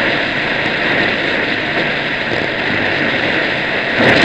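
Shortwave radio static: a steady hiss over the weak 12910 kHz broadcast with no clear speech, swelling a little near the end.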